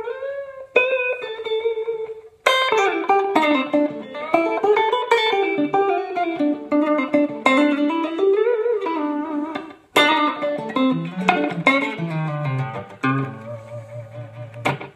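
Home-made Telecaster-style electric guitar with Lollar pickups, played through a Line 6 Helix into a Fender Twin amp in a twangy chicken-picking style. It opens with a held note with vibrato, then runs fast picked lines with string bends, breaks off briefly about ten seconds in, and ends on a few lower notes.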